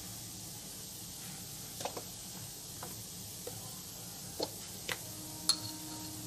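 Soft steady sizzle of mashed potato and spices frying in oil in a non-stick kadhai, with a few light clicks.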